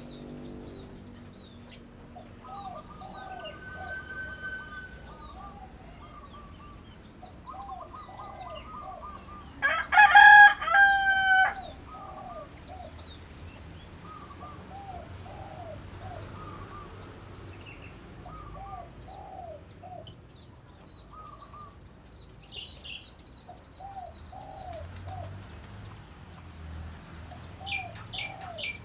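A rooster crows once, loudly, about ten seconds in. Other birds call throughout: a repeated low arched call every second or two, and scattered high chirps, with a quick run of high chirps near the end.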